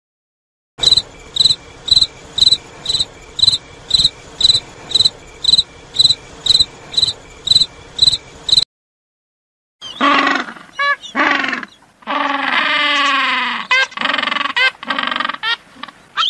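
Crickets chirping steadily, about two high chirps a second. After a short break they give way to emperor penguins calling, with bending cries and one long drawn-out call.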